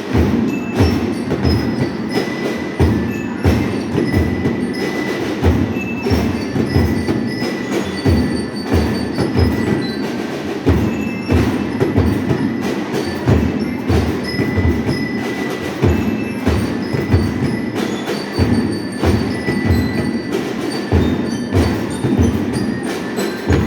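Youth marching band playing: drums keep a steady beat of about two strokes a second under bell lyres ringing out a melody.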